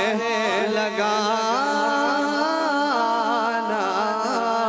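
A man singing a naat, a devotional poem in praise of the Prophet, into a microphone, drawing out long wavering notes that slide between pitches.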